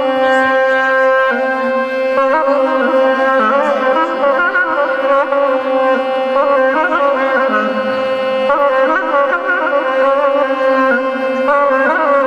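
Balaban, the Azerbaijani double-reed pipe, playing a wavering, heavily ornamented folk melody over a steady held drone note, with no singing.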